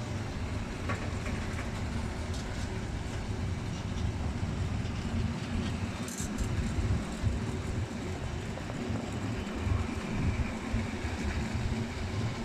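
SM42 diesel shunting locomotive's engine running under power as it pulls away, with a train of open wagons rolling past over the rails.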